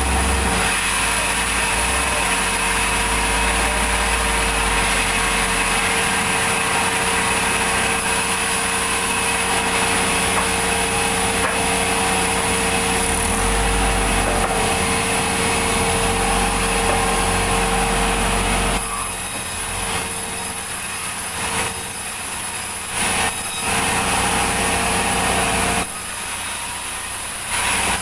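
Sawmill saw cutting lengthwise through a log, a steady rasp over the running machine's drone. About two-thirds of the way through the cut ends and the saw runs on more quietly, with a few short louder stretches.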